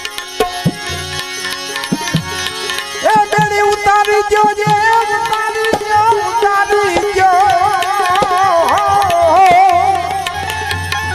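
Interlude in Gujarati bhajan music: tabla playing a rhythm. About three seconds in, a melody line enters with long held, ornamented notes that waver near the end.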